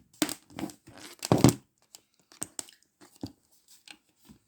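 Plastic rustling and clicking as a small USB humidifier and its cable are handled: a quick run of crinkles and taps, loudest about a second and a half in, then fainter scattered clicks.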